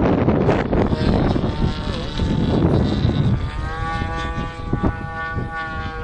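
Strong wind buffeting the microphone, easing about halfway through to let the steady buzz of a model plane's SC 91 glow engine come through as it flies overhead.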